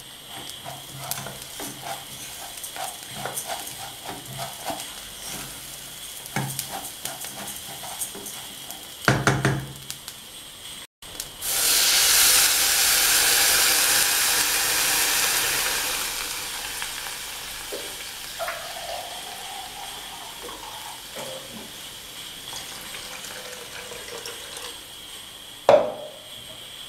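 Rice frying lightly in a saucepan, stirred with a silicone spatula scraping the pan, with a knock about nine seconds in. Water is then poured onto the hot rice and hisses loudly in a burst of sizzling steam for several seconds. The hiss fades to a gentle simmer, with a sharp knock near the end.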